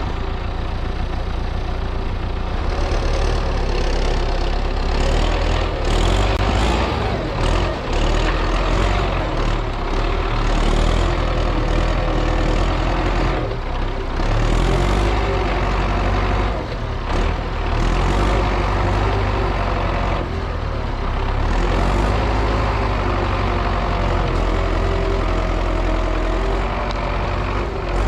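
MTZ-82 tractor's diesel engine running steadily under load, with a few brief dips in level.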